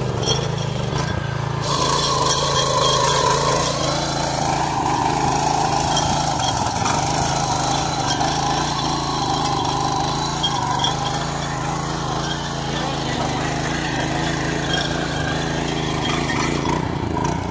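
Single-cylinder petrol engine of a 7.5 HP power weeder running steadily under load while tilling soil. Its note lifts about two seconds in and then wavers a little.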